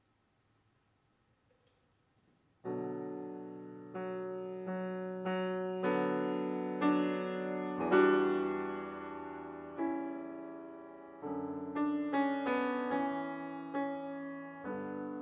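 Yamaha grand piano playing slow classical chords, starting about two and a half seconds in after near silence; each chord rings on and fades before the next is struck.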